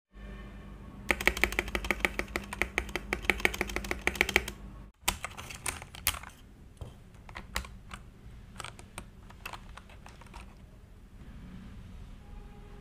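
Typing on a KeyCool KC84 mechanical keyboard with its stabilizers still untuned. It starts with a fast run of key clicks lasting about three seconds, then after a short break comes slower, scattered presses that stop about ten seconds in.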